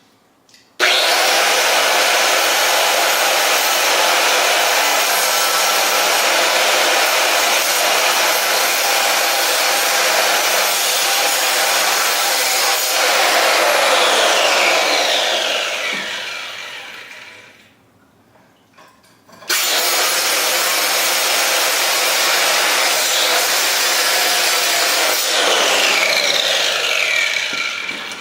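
Small handheld wet tile saw with a diamond blade cutting into a concrete wall: it starts about a second in, cuts steadily, then winds down with a falling whine and stops. After a short pause it starts and cuts again, winding down near the end.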